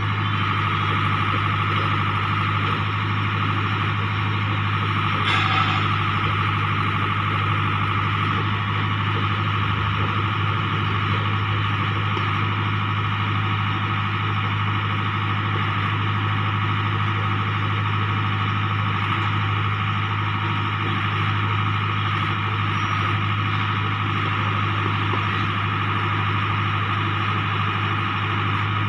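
A JLG boom lift's engine running steadily, with a constant low hum and a steady higher whine over it. A short knock about five seconds in.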